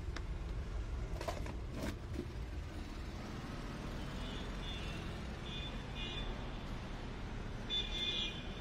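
Steady low rumble of city street traffic, with two faint knocks a little after one and two seconds in. From about four seconds on there is a series of short high-pitched tones, loudest near the end.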